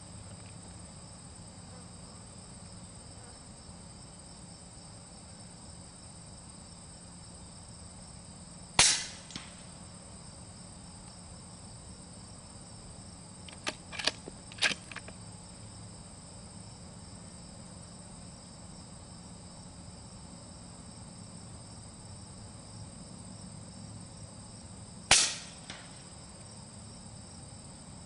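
Two suppressed shots from a .30-calibre rifle firing subsonic handloads through an OPS Inc. 3rd Model suppressor, each a short sharp crack, about a third of the way in and again near the end, with a few lighter clicks in between. Steady insect chirring underneath.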